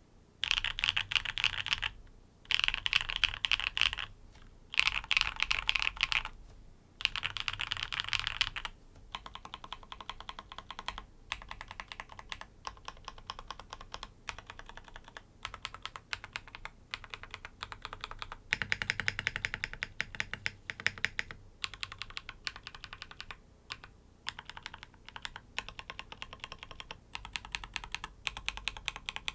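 NEO80 mechanical keyboard with tactile switches in a gasket-jacket mount being typed on: four quick bursts of fast typing with short pauses between, then slower separate keystrokes, with one more fast burst a little past the middle.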